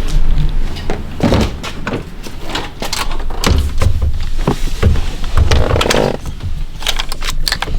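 Irregular knocks, clicks and clunks of parts being handled as a steering wheel is fitted back onto a car's steering column.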